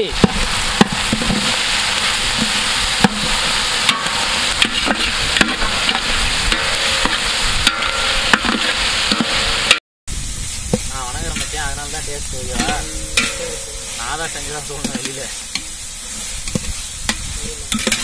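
Onions, tomatoes and green chillies sizzling in hot oil in a large metal pot, stirred with a metal slotted ladle that scrapes and clicks against the pot. The sound cuts out briefly just before ten seconds in, and the sizzling is quieter after that.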